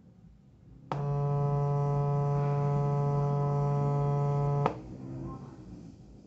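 A 142 Hz test tone from a phone tone-generator app, played through a small portable speaker, buzzy with strong overtones. It switches on with a click about a second in, holds steady for almost four seconds, and cuts off with a click.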